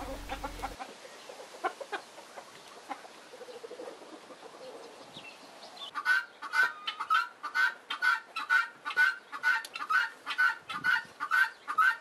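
Guinea fowl calling in a fast, even series of harsh notes, about three a second, starting about halfway through. Before that, only faint farmyard sounds.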